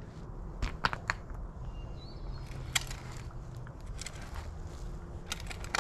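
Digging with a hand shovel in soil: a few sharp knocks and scrapes of the blade in dirt, clustered about a second in and near the end, over a low rumbling noise.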